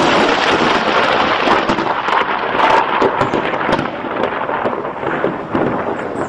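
Close thunder: a loud crackling clap that starts suddenly and rumbles on, easing off after about four seconds.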